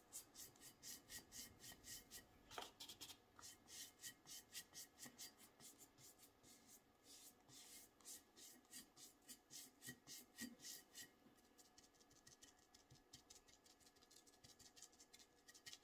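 Faint, quick swishing strokes of a foam sponge brush spreading varnish over a painted glass bottle, about three or four strokes a second, with fewer strokes for a few seconds near the end.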